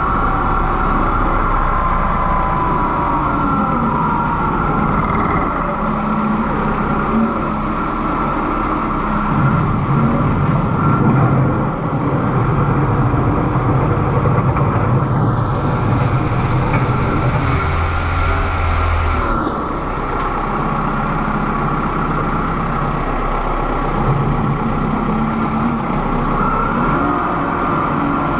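Kubota M6060 tractor's diesel engine running steadily as the tractor drives along the road, its pitch shifting a little with the throttle. A hiss rises over it for about four seconds midway.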